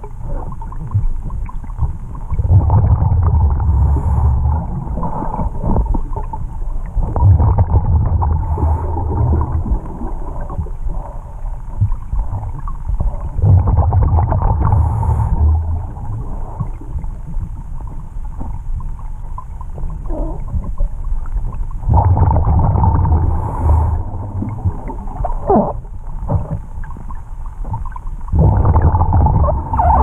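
Scuba diver's regulator breathing heard underwater: a low bubbling rumble of exhaled air comes about every five to six seconds, five times, over a steady faint hiss.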